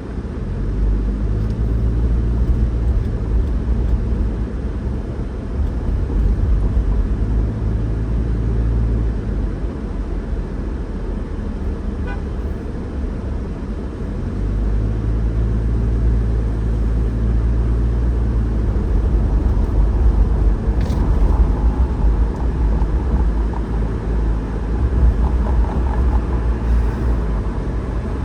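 Steady low rumble of a car driving, engine and tyre noise, growing louder and softer in long stretches.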